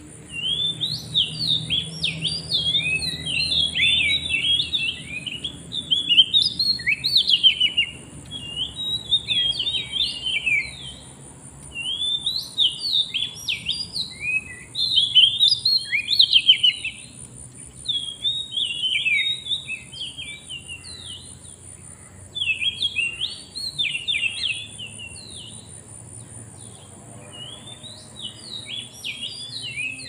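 Oriental magpie-robin song: rapid, varied whistled and chirping phrases in loud bouts of a few seconds, broken by short pauses, over a steady high-pitched drone.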